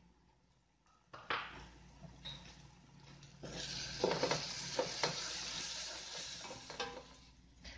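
A wooden spoon stirring a tomato-onion masala frying in oil in a stainless steel pot, with sizzling and a few knocks of the spoon against the pot. It starts about a second in, and the sizzle thickens about halfway through.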